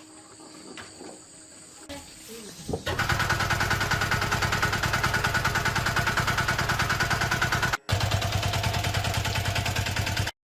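A motorised tool or machine starts up about three seconds in and runs loudly with a rapid, even pulse, cutting off abruptly twice.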